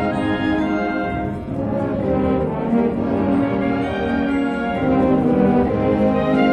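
High school band recording, brass instruments playing slow, held chords.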